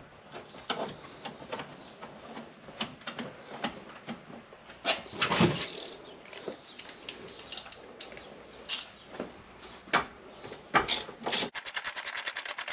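Scattered clicks and knocks of a nut and hand tools being handled, then near the end a socket ratchet wrench clicking rapidly and evenly as it runs down the nut on the battery hold-down clamp.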